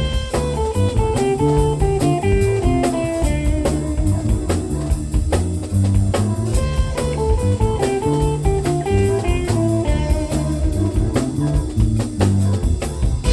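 Live band playing an instrumental passage of a blues-funk tune: guitar lines over a steady drum-kit beat and a moving low line.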